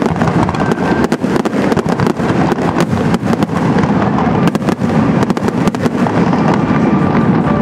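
Aerial fireworks display: shells bursting one after another in a loud, rapid string of sharp bangs over a constant din.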